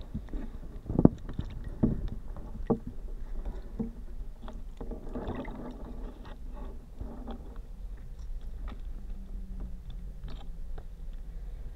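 Underwater handling of a cardboard pasty tray, heard through a hydrophone: water swishing with a handful of sharp knocks, the loudest about a second in, over a steady low hum.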